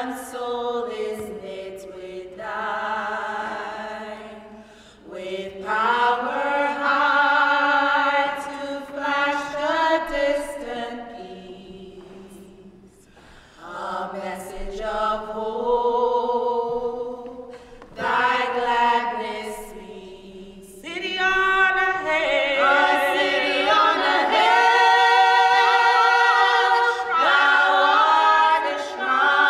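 A small vocal group singing a cappella in harmony: slow, held notes with vibrato, sung in phrases with short breaks between them, swelling fuller and louder in the last third.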